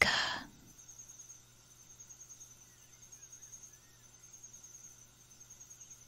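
Night insects, crickets by their sound, trilling in a steady high pulsing chorus, with a few faint chirping calls about halfway through.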